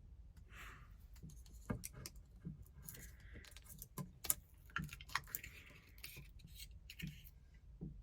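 Small clicks and light metallic clinks of objects being handled, with soft low thuds recurring about every three-quarters of a second.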